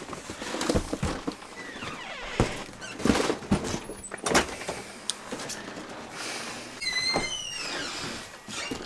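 A door being opened and shut amid scattered knocks and thumps, with a short high squeak about seven seconds in.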